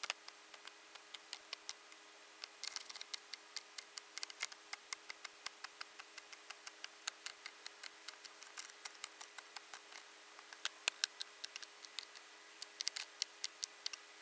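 Quick, irregular clicking and tapping, as of a computer keyboard, a mouse and CD cases being handled while CDs are scanned and listed. A faint steady electrical hum sits underneath.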